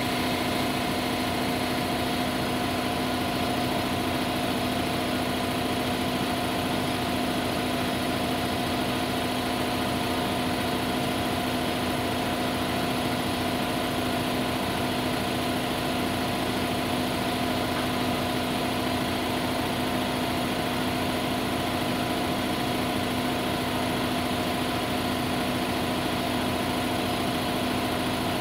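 A motor running steadily, a constant mechanical hum with several fixed tones and no change in speed.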